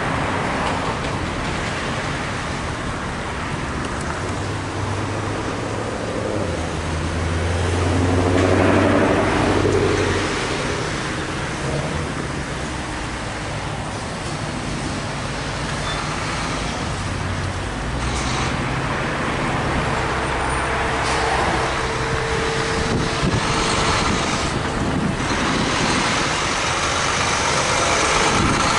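Road traffic passing: cars and trucks driving by with engine and tyre noise, rising and falling as each passes, and a heavy truck's engine growing louder near the end.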